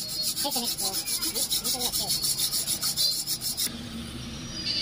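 Hand file rasping on the steel tube of a Swift Dzire front shock absorber clamped in a vise, in rapid, even back-and-forth strokes several times a second. The filing stops abruptly about three and a half seconds in.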